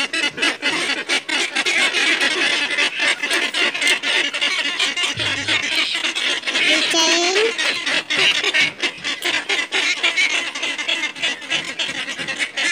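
A domestic waterfowl gives one rising honk about seven seconds in, over a steady crackling hiss full of small clicks.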